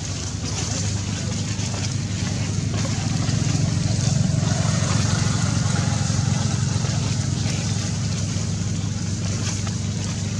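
A steady low motor hum, a little louder in the middle.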